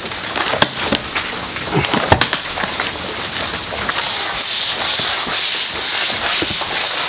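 Swiffer flat mop sliding and scraping over wooden plank floorboards, with irregular light knocks of the mop head and handle. About four seconds in, a steady hiss comes in and holds.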